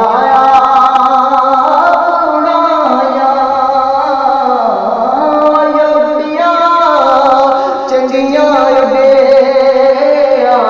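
Punjabi Sufi kalam sung by a solo voice in long, drawn-out notes that slide between pitches, with musical accompaniment.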